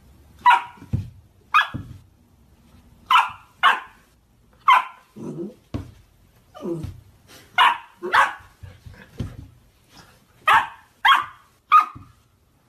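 A fluffy puppy barking at its own reflection in a mirror: about a dozen short, high barks, several in quick pairs, with a couple of lower yelps that fall in pitch between them.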